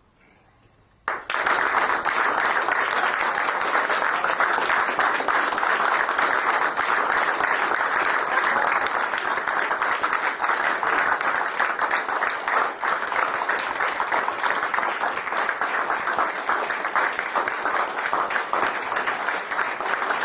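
A crowd applauding. The clapping breaks out suddenly about a second in and keeps going at a steady, loud level.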